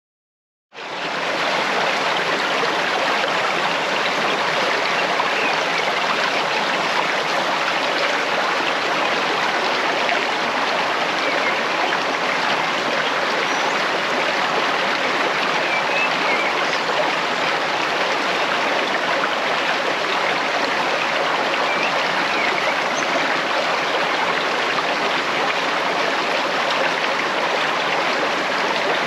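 Running water of a stream, a steady rushing flow that starts under a second in and holds even.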